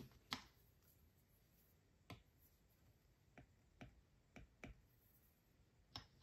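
Near silence with a few faint, scattered clicks: a stylus tip tapping on a tablet's glass screen while writing, with a small cluster of taps around the middle.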